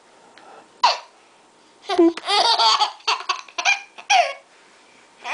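Baby laughing in short, high-pitched bursts: one brief laugh about a second in, then a run of giggly laughter from about two seconds in that breaks into several short separate laughs.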